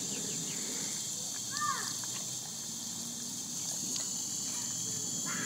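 Pug lapping water from a thin jet out of a hose nozzle, against a steady high insect chorus, with a brief chirp about a second and a half in.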